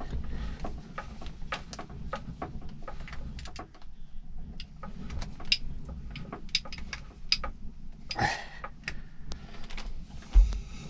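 Irregular small clicks and taps as the brass cap of a stern gland greaser is handled and packed with grease. There is a brief noise about eight seconds in and a dull thump near the end.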